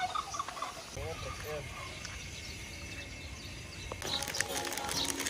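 A turkey gobbling: a quick run of warbling calls in the first second and a half. About four seconds in, a run of light clicks and rustling takes over.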